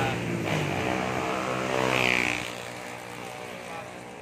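A motor vehicle drives past close by on the road, its engine note loud through the first two seconds and then falling away into steady background traffic.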